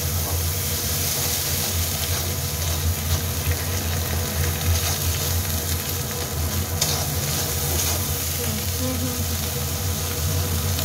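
Tomato-and-spice masala sizzling in hot oil in an aluminium kadai as it is sautéed down, with a steel spatula stirring and scraping the pan. A steady low hum runs underneath.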